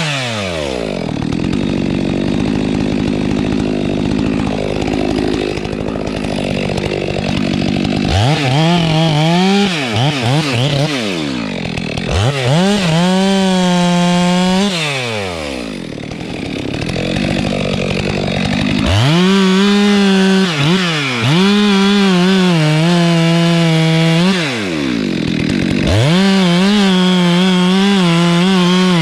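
Stihl MS 462 two-stroke chainsaw dropping to idle, revved up and down twice, then held at full throttle cutting albizia wood in two long stretches, its pitch wavering under load with a short dip in revs between them.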